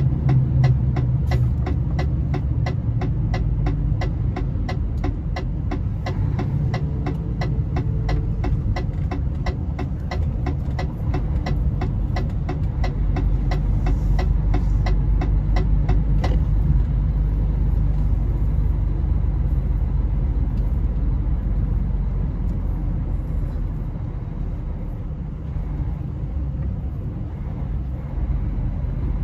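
Scania 113 truck's diesel engine and tyres rumbling steadily, heard from inside the cab as it drives and slows. A regular ticking, about two to three clicks a second, runs alongside and stops about halfway through.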